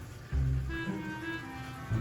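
Background instrumental music with low bowed strings, cello and double bass, playing short, separate notes.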